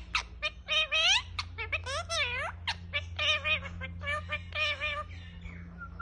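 Indian ringneck parakeet talking in a high, squawky mimicked voice, a quick run of short words such as "Mimi" mixed with chirps, dying away about five seconds in.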